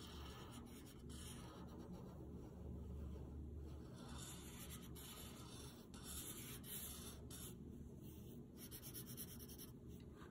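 Prismacolor alcohol marker's broad tip rubbing across paper, faintly, in a series of short strokes with brief pauses between them.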